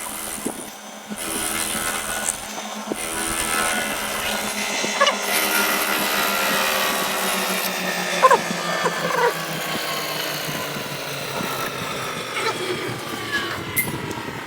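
Machine-tool spindle motor running while cutting valve pockets into a piston, its whine slowly falling in pitch, with a few short squeaks from the cut.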